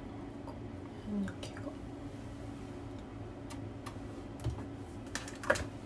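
Faint rustling and scattered small clicks of hands handling hair and small objects over a low steady hum, with a quick run of sharper clicks near the end.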